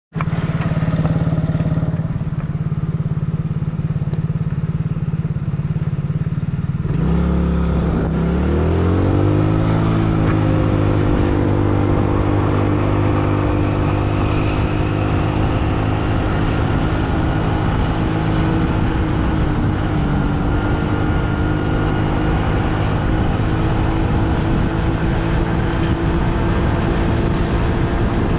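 Motor vehicle engine running steadily, then rising in pitch about seven seconds in as it pulls away, and settling into a steady higher drone while under way.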